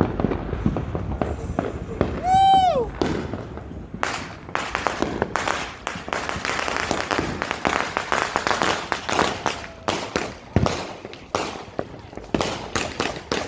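Consumer fireworks going off: from about four seconds in, a dense run of crackling with many sharp bangs as a cake fires. Shortly before, a brief whistle rises and falls.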